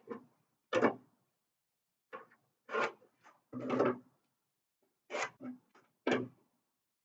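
Orange triangular speed square being set against pine floor joists while a pencil scribes squared blocking lines down them: a run of short scrapes and taps, roughly one every second, with silence between.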